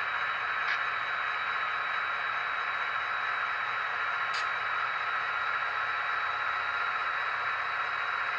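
HO-scale model diesel locomotives running along the track: a steady hiss with a faint, thin high whine, and two light clicks, one about a second in and one near the middle.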